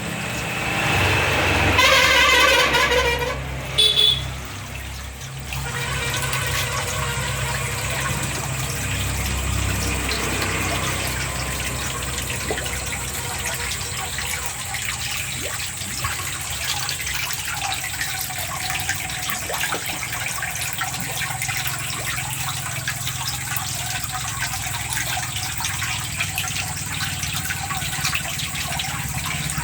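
Water gushing steadily over a low pump hum. A short wavering pitched sound comes about two seconds in, and two brief loud knocks follow near four seconds.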